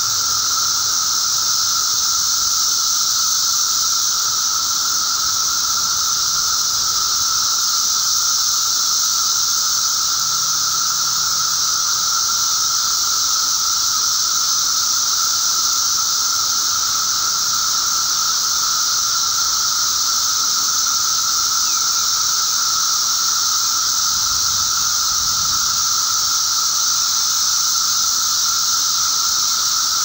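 Dense chorus of periodical cicadas (Magicicada) in a mass emergence: a loud, unbroken drone with a steady mid-pitched whine and a high hiss above it.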